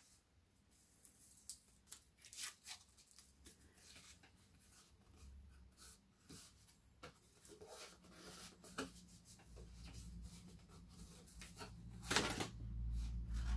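Cardboard Priority Mail envelope being handled and torn open: scattered rustles and crinkles, with a louder tear about twelve seconds in. A low rumble comes in over the last few seconds.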